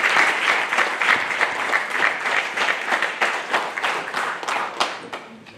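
Applause from a room of people clapping, loud at first, then thinning to a few separate claps and dying away near the end.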